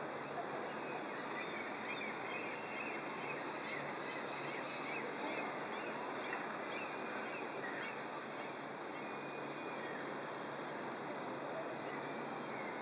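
Steady rushing background noise, with faint short high chirps scattered through it.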